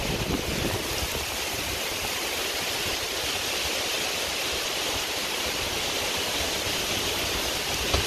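Heavy rain falling steadily, a dense even hiss, with wind gusting on the microphone.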